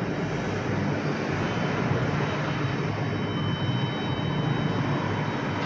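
A steady mechanical drone with a low hum and a faint steady high-pitched whine over it.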